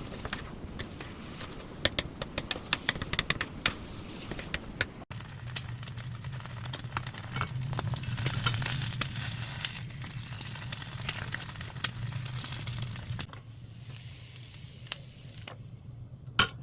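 Food sizzling and crackling as it fries in a pan, with sharp clicks and taps at first. The sizzle swells about a third of the way in, over a steady low hum, and dies down near the end.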